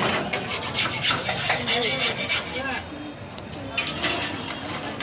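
A cloth scrubbed across a hot griddle pan in quick, repeated rasping strokes, with a short pause about three seconds in before the strokes start again.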